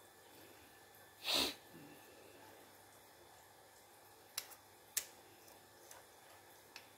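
A short, sharp breath through the nose about a second in, then two small clicks from handling the plastic wireless-microphone body, over faint room tone.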